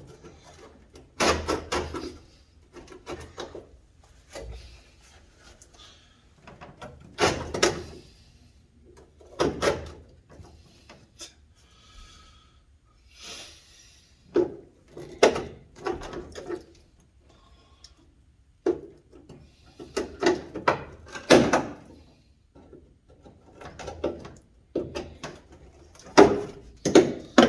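Irregular clunks, knocks and scrapes of metal parts and tools being handled in a truck cab during disassembly, spaced out with short quiet gaps between them.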